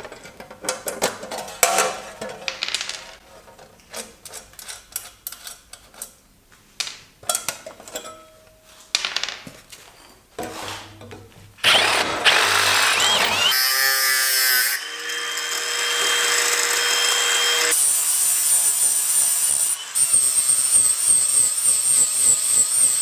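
Clanks and knocks of a metal bracket being handled and clamped in a bench vise. About twelve seconds in, an AEG angle grinder starts and runs steadily with a high whine, cutting the metal bracket and throwing sparks.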